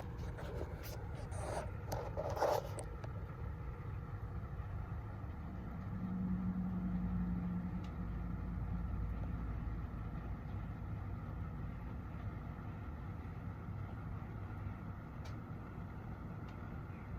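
Low steady background rumble, with a few short scraping handling noises in the first three seconds and a slightly louder low hum about six seconds in.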